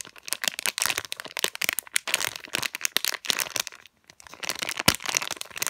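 A cracking cracker squishy squeezed and bent by hand inside its plastic bag: a dense run of small crackles mixed with the crinkle of the wrapper. There is a brief pause about four seconds in, then one sharper crack.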